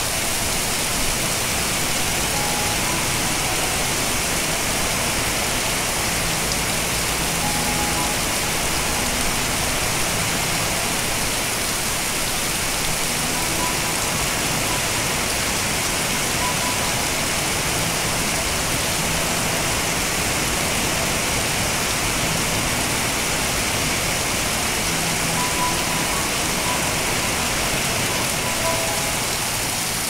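Heavy rain falling in a steady hiss, splashing into puddles on a muddy farmyard.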